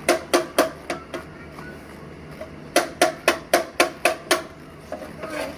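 Metal being struck hard with a tool during a motorcycle repair: two runs of quick, ringing blows at about four a second, the second run longer, with a short pause between.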